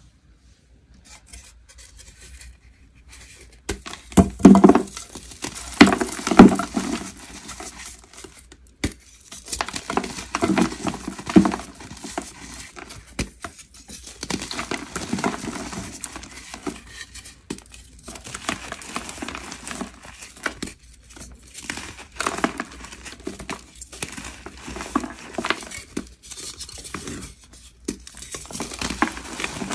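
A molded block of gym chalk mixed with glitter being snapped and crushed by hand: sharp cracks and gritty crunching as it crumbles into powder. It starts about four seconds in, with the loudest snaps in the first few seconds after that.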